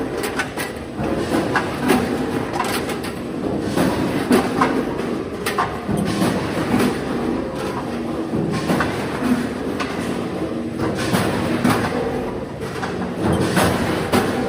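Frozen chicken breast packing line with a vertical packing machine running: a steady mechanical clatter with many irregular clicks and knocks.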